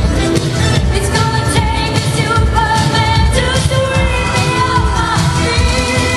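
Pop song with a singing voice over a steady beat.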